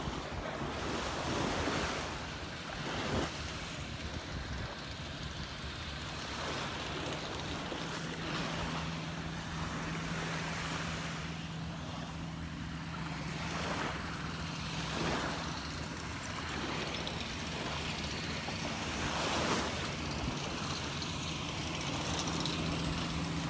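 Small waves lapping and washing up onto a sandy beach, swelling every few seconds, with wind on the microphone. A steady low hum comes in about a third of the way through.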